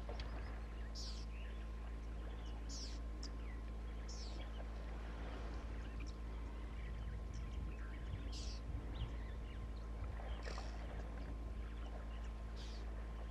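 Short, high bird calls every second or two over a steady low hum and rumble of outdoor ambience.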